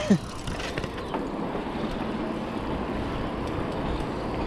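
Steady rush of wind on the action-camera microphone and tyre noise from riding a bicycle along an asphalt street, with a brief falling-pitched cry or squeak right at the start.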